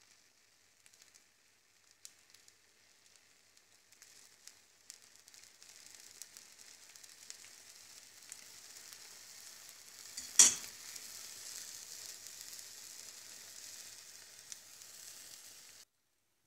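A thin layer of beaten egg sizzling in oil in a nonstick frying pan. The sizzle builds up after a few seconds and holds steady, then cuts off suddenly near the end. A single sharp knock about ten seconds in is the loudest sound.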